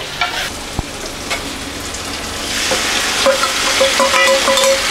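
Tomato, onion and spice masala frying in a wok while a metal spoon stirs and scrapes it. The sizzle grows louder about halfway through as liquid is poured into the hot pan, with a few short squeaks of the spoon against the pan.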